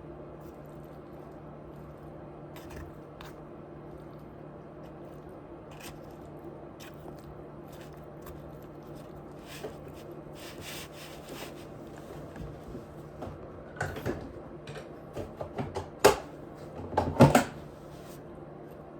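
Close-up mouth sounds of a person chewing food: soft wet clicks and squishes that get busier partway through, with a few louder sharp smacks near the end, over a steady low hum.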